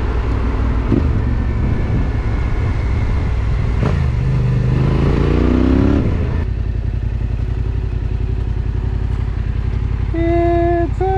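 Yamaha Tenere 700's parallel-twin engine running through a Yoshimura RS-12 slip-on exhaust with the spark arrestor removed, while riding. Its note rises as it revs up about four seconds in, then drops back suddenly to a steady, lower idle from about six and a half seconds.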